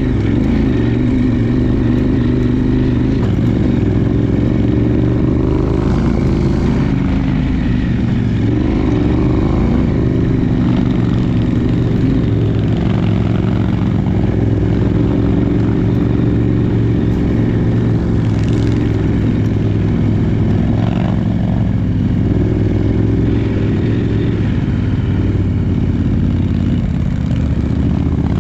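Adventure motorcycle engine running steadily under way, its pitch shifting a little up and down.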